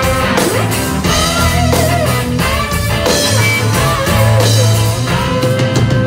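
Live rock band with electric guitars, bass guitar and drum kit playing an instrumental passage. A lead guitar line with bending notes sits over a steady bass line and drumbeat.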